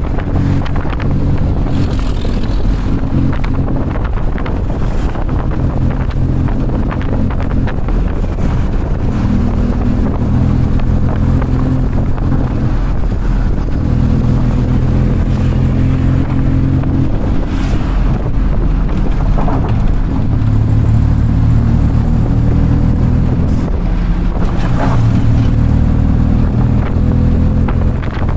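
Tuk-tuk engine running loudly under way, its pitch shifting every few seconds as the engine speed rises and falls, with wind noise on the microphone.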